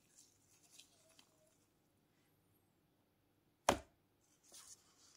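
Soft rustling of nitrile-gloved hands handling a smartphone, then a single sharp knock about three and a half seconds in as the phone is set down on its cardboard box, followed by light rustling.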